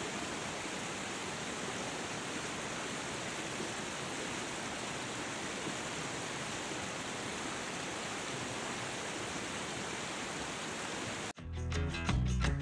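Steady rushing of river water over rapids, an even hiss with no rhythm. About 11 seconds in it cuts off abruptly, and rock music with strummed guitar and a heavy bass beat starts.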